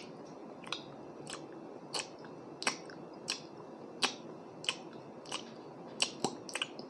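Close-up wet chewing of a mouthful of siomai dumpling dipped in soy sauce: regular moist mouth smacks, about one and a half a second.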